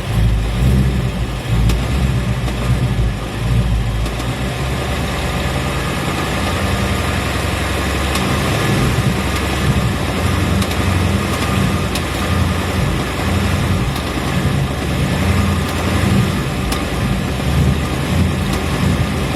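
2017 Ford Mustang GT's 5.0-litre Coyote V8 idling steadily, with the ticking noise that is its reported problem.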